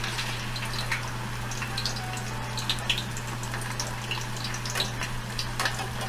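Par-boiled, frozen potato strips deep-frying in hot oil in a stainless steel saucepan: a steady bubbling hiss dotted with small crackles and pops, with a couple of sharper ticks near the end.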